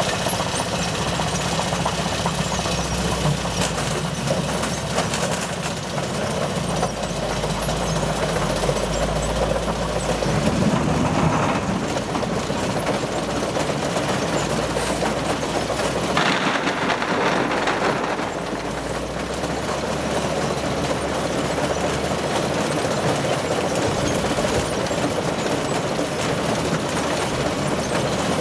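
Sugar beet rescreener running: the machinery, its conveyors and vibrating shaker make a steady mechanical din. An engine sound rises briefly about ten seconds in, and a louder rush of noise comes around sixteen to eighteen seconds in.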